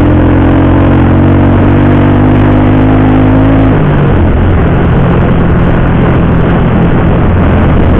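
Motorcycle engine running steadily while riding, with road and wind noise. The engine note changes to a different pitch about four seconds in.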